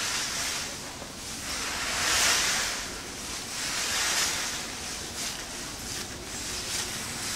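Wind noise, a rushing hiss that swells twice, about two and four seconds in.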